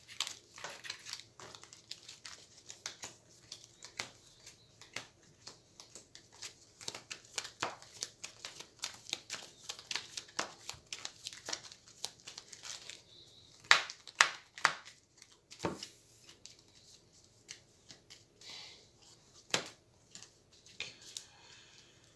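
Hero Realms playing cards being handled on a table: an irregular run of light clicks, flicks and snaps as cards are gathered, handled and laid down. A few louder snaps come about two-thirds of the way in.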